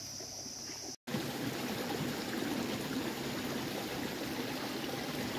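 A high, steady insect call for about the first second, then, after a brief cut, the steady trickle of shallow stream water.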